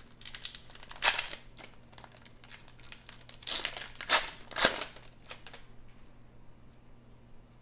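Shiny wrapper of a Skybox basketball card pack being torn open and crinkled by hand, in a few crackly bursts, the loudest about four to five seconds in.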